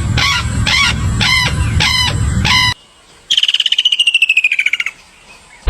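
Animal calls in two parts. First comes a pitched call repeated about every half second or so over a low rumble. After a short pause comes a fast pulsed trill that falls slightly in pitch.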